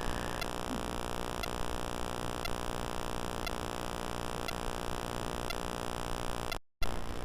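Steady electrical hum and hiss in the recording, with faint regular ticks about twice a second; the sound drops out completely for a moment near the end.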